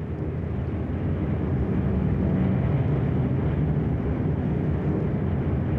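Aircraft engines droning in a steady low rumble that swells over the first couple of seconds, then holds.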